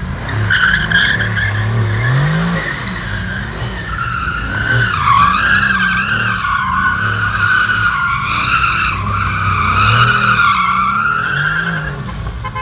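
Mercedes-AMG GT R doing donuts: its rear tyres squeal in a long, wavering screech while the twin-turbo V8 revs up and down. The squeal fades out near the end as the car pulls away.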